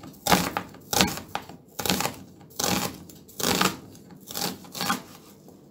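Chef's knife slicing a halved onion on a plastic cutting board: about seven cuts at an uneven pace, stopping shortly before the end.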